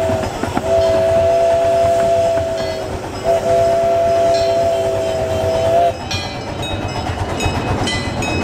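Steam locomotive whistle blowing a chord of several notes in long blasts: one trails off right at the start, then two more of two to three seconds each, the last ending about six seconds in. After it, the train's clicking and rattling as it rolls along.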